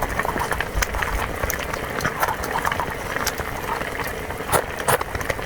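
Wet eating sounds: chewing and slurping of spicy food and broth, with frequent small clicks and smacks.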